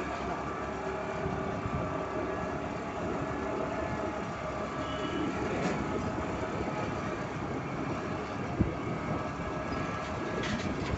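Motor scooter riding along at steady speed, heard from the rider's seat: engine running with road and wind noise. One short knock comes about three quarters of the way through.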